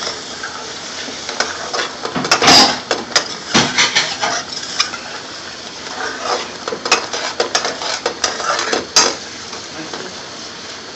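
Metal utensil clattering and scraping against a cooking pan in quick, irregular strokes as the sauce is worked, stopping about nine seconds in and leaving only a steady hiss.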